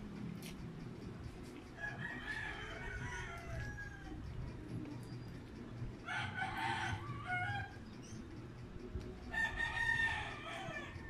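A rooster crowing three times, a few seconds apart, each crow lasting about a second and a half.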